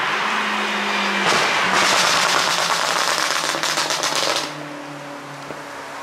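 BMW X6M's twin-turbo V8 exhaust crackling and popping in a rapid rattling burst for about three seconds, the effect of an ECU pop-sound tune; the crackle starts about a second in after a steady engine drone and stops abruptly, leaving a quieter engine drone.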